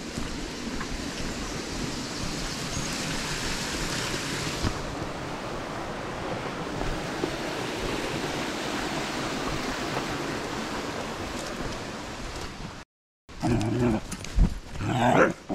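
Steady rushing of a shallow woodland brook running over stones. About thirteen seconds in, the sound cuts out for a moment, then comes back with louder, uneven noises close to the microphone.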